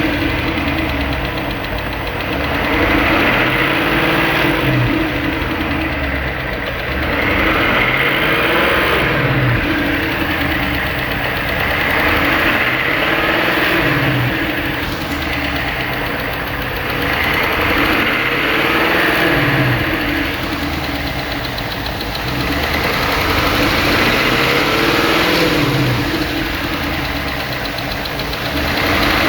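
Car engine running, its speed rising and falling in a slow, regular cycle about every five seconds.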